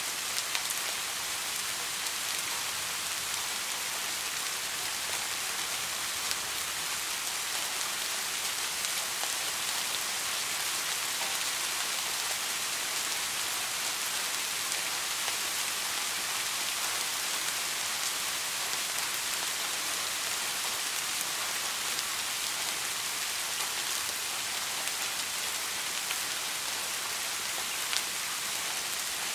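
Steady rain falling, an even hiss sprinkled with sharp ticks of individual drops.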